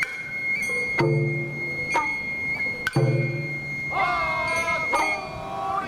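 Japanese festival hayashi music: a bamboo flute holds one long high note while a drum is struck about once a second. A second, wavering tone slides in and out near the middle.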